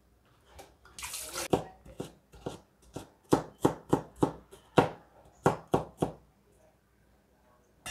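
A Chinese cleaver chopping garlic cloves on a cutting board, the blade striking the board about three times a second for some four seconds. A brief rustle comes just before the chopping starts.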